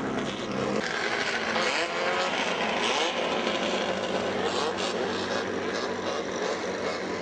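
Engines of small 850 cc race cars running hard on the circuit, their pitch rising and falling as the cars accelerate and shift.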